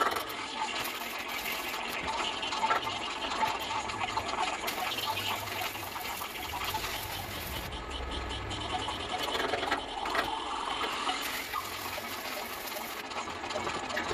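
Stick (shielded metal arc) welding arc crackling steadily as a bead is laid.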